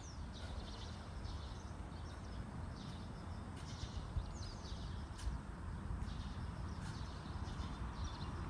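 Birds chirping in short, repeated falling notes over a steady low rumble.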